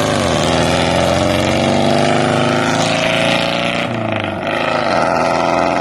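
Four-cylinder engine with a custom true dual exhaust accelerating under load, its pitch climbing steadily, dropping briefly about four seconds in, then climbing again.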